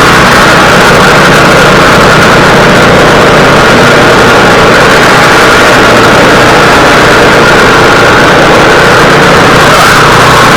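Small gasoline engine of a snow thrower running steadily at a constant speed, loud and close.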